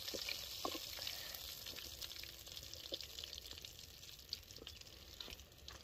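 Murrel fish slices frying in groundnut oil, a faint steady sizzle that slowly fades toward the end, with a few light clicks.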